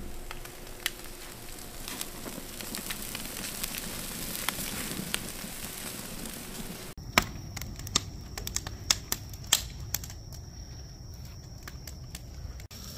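Charcoal and wood fire crackling in a steel-drum barrel grill, a steady hiss with scattered sharp pops. About seven seconds in the sound changes abruptly to a larger wood fire giving louder, separate pops.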